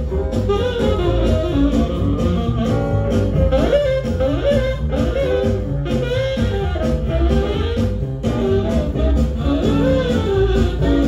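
Swing-era jazz with tenor saxophone and band, played from a vinyl LP on a Lenco L75 turntable, running steadily.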